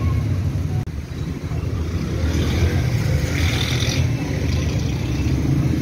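Busy street traffic: vehicle engines running as a steady low rumble, with a louder hissy stretch in the middle.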